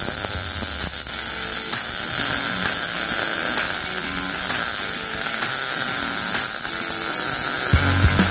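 Wire-feed welder arc crackling and hissing steadily as a bead is run on a steel support tube.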